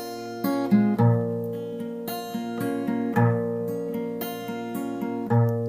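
Background music: an acoustic guitar strumming chords in an instrumental passage, with a new chord struck about every second and no singing.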